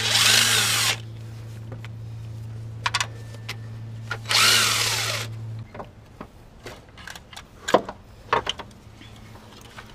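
Cordless DeWalt driver spinning out bolts on the engine's power steering pump mount, in two bursts of about a second each with the motor whine rising and falling, then a few light metal clinks near the end.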